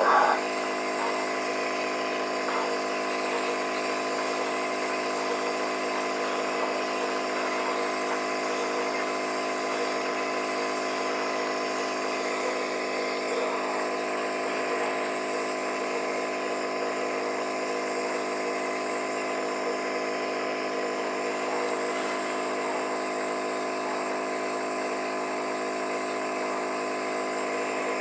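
A small electric motor running with a steady buzzing hum, unchanged throughout.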